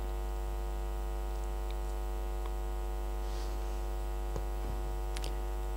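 Steady electrical mains hum through the hall's microphone sound system, with a few faint clicks near the end.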